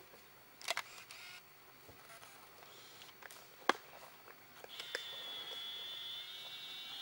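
Camera mechanism noise: a click with a short whir about a second in, a sharp louder click midway, then a steady high-pitched motor whine over the last two seconds that cuts off abruptly.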